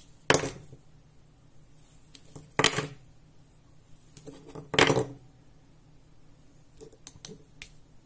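Small hard objects handled and set down on a desk mat: three short clattering knocks about two seconds apart. Near the end come a few light clicks as the mini LED flashlight's button is pressed and it switches on.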